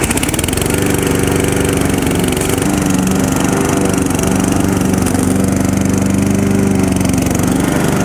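Gasoline engine of an EvaTech hybrid remote-controlled lawn mower, just started and running steadily at idle.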